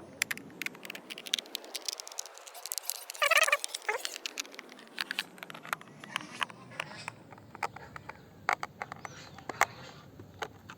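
A screwdriver working the screws of a clothes iron's plastic housing: a run of small, irregular clicks and ticks, with a brief squeak about three seconds in.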